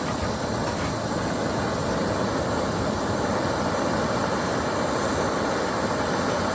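Isobutane canister backpacking stove burning with its flame lit, giving a steady, even hiss.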